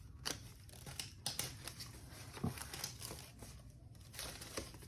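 Packaging rustling and crinkling as a parcel is unpacked by hand, with scattered small clicks and taps.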